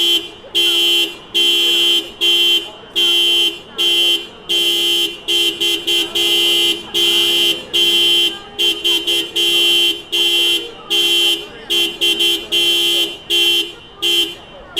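A Honda car's horn honked over and over in an uneven rhythm of loud blasts, about one and a half a second, some held for half a second and some quick double taps.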